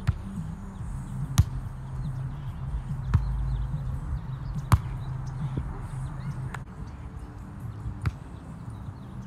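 Volleyball being played: six sharp slaps of hands and forearms on the ball, roughly one every second and a half, as it is passed back and forth. The loudest hits come about a second and a half in and near five seconds in.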